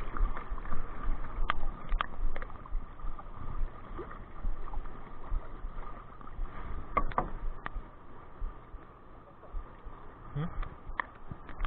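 Water sloshing against the hull of a small outrigger boat as it is paddled on choppy sea, with wind rumbling on the microphone. A few sharp knocks come through, two about a second and a half to two seconds in and two more about seven seconds in.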